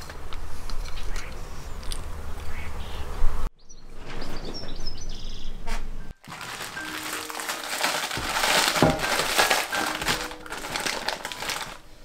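Rain pattering on garden leaves, a dense hiss of fine drops that is loudest in the second half. A few high bird chirps come about midway, and soft background music notes sit faintly under the rain.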